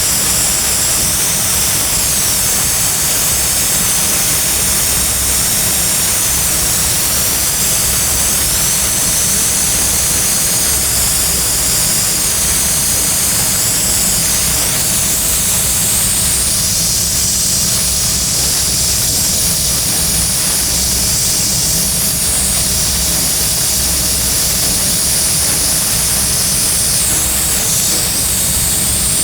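Brazing torch flame hissing steadily while a refrigerant pipe tee fitting is brazed.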